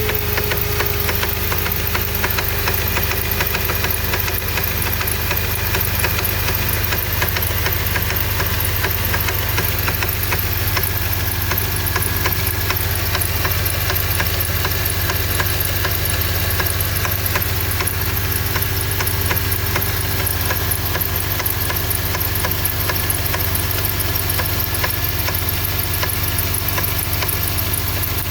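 Honda K24 2.4-litre inline-four engine idling steadily just after starting, with a rapid, even knocking running through it that the owner calls a strange knocking noise.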